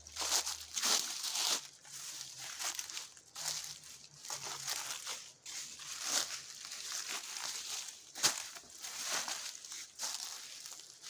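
Footsteps crunching through dry fallen leaves, one crackling crunch after another in a steady walking rhythm.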